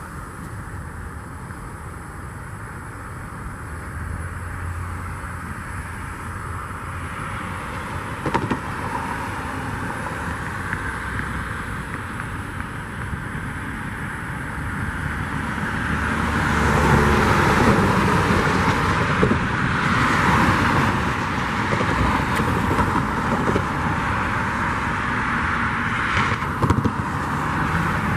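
Diesel engine of a GE Evolution Series (GEVO) freight locomotive running as the train approaches. It rumbles steadily and grows clearly louder about two-thirds of the way in as the locomotive draws near.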